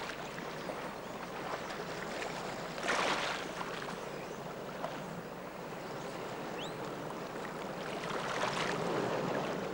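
Steady rush of running water from the hot spring pools and stream, swelling briefly about three seconds in and again near the end.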